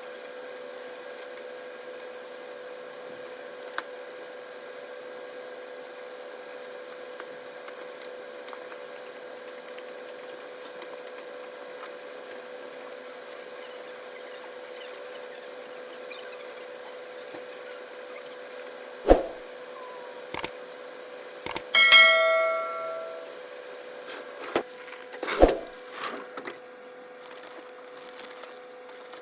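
A steady electrical hum. Late on it is broken by a few sharp clicks and knocks, then one bright ringing ding that lasts about a second and is the loudest sound.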